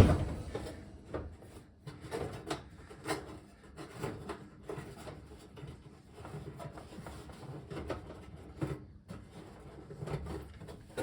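Metal parts inside a gas oven being shifted and fitted back into place: a sharp knock at the start, then scattered clunks, rubbing and scraping.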